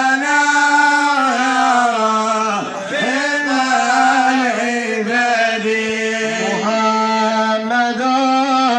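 A solo male voice chanting a Moroccan Sufi madih, a praise song for the Prophet, drawing out long melismatic held notes with brief breaths between phrases.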